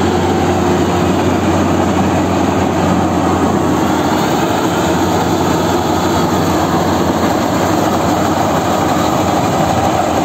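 GAM Ruilong crawler combine harvester running steadily while cutting paddy: a loud, constant engine drone mixed with the whir of the cutting and threshing machinery.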